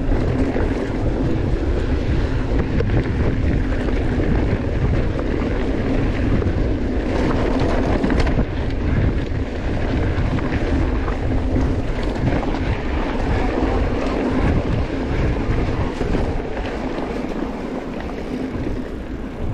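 Wind buffeting the camera microphone over the rumble of a mountain bike's tyres on a rough trail, with occasional knocks and rattles.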